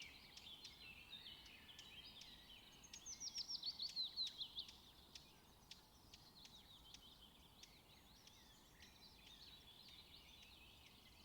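Faint songbirds singing: a quick run of high, downward-sweeping whistled notes about three to five seconds in, with scattered short chirps before and after.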